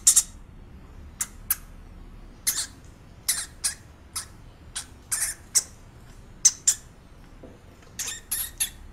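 A hamster rustling and crunching in wood-shaving bedding: short, dry, crackly sounds in an irregular series, coming quicker near the end.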